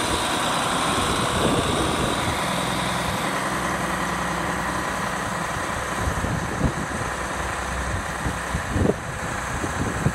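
John Deere 4440 tractor's six-cylinder turbocharged diesel idling steadily, with a few short low bumps in the second half.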